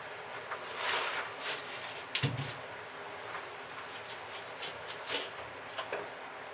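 A large wooden board being carried and handled: a scraping rustle, then a dull knock about two seconds in as the panel bumps, followed by a few light taps and scrapes as it is stood upright against a wall.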